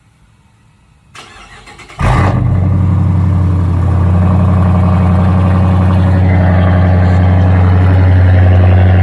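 Dodge Charger with a mid-muffler delete being cold-started: the starter cranks for about a second, then the engine catches and settles into a loud, steady idle.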